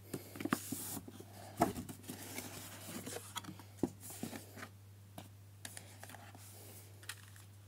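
Cardboard box and packaging being opened and handled by hand: rustling, scraping and light knocks of the lid and inner tray, busiest in the first half and thinning to occasional clicks.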